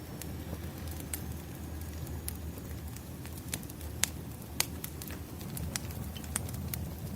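Wood fire burning: a steady low rumble with scattered sharp crackles and pops, the two loudest about four and four and a half seconds in.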